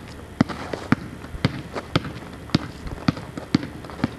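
Sharp taps at a steady pace, about two a second.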